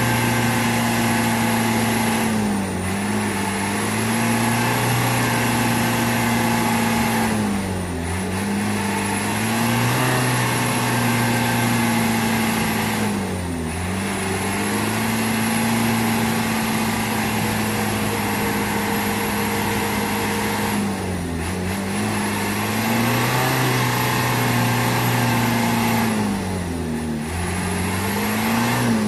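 Heavy diesel truck engine held at high revs, straining to pull a loaded truck through deep mud. The revs sag briefly and climb back about every five to six seconds.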